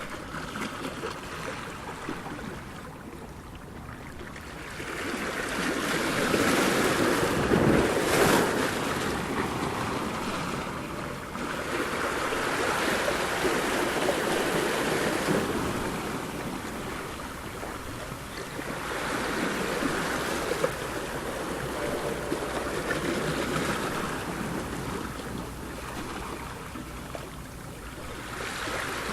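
Ocean surf: waves breaking and washing in, the sound swelling and fading every several seconds, with the loudest surge about a quarter of the way in.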